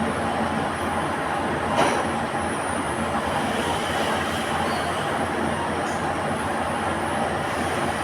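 Workshop machinery running with a steady, dense noise, with a single sharp knock about two seconds in.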